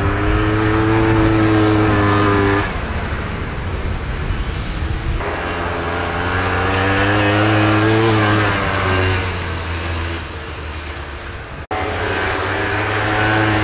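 Vintage racing snowmobiles' two-stroke engines running at high revs. The engine eases off about three seconds in, winds up again in a rising whine, then falls away, with a split-second dropout near the end.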